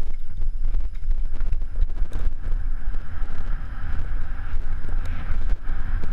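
Downhill mountain bike descending a bumpy dirt trail at speed: a heavy rumble of wind buffeting the camera's microphone, with the bike rattling and clattering over the bumps throughout.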